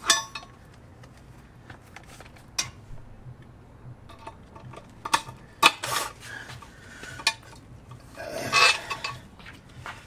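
Metal parts and tools clinking and clanking while a train horn is fitted under a pickup truck: a string of sharp separate knocks, with a longer, louder rattle near the end.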